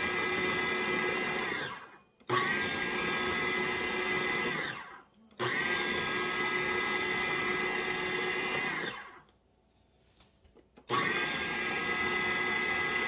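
KitchenAid 13-cup food processor pulsing cold butter into flour for pie crust: repeated runs of a few seconds each, the motor whining and winding down each time it stops. There are four runs, with a pause of about two seconds around nine seconds in, and the last run is still going at the end.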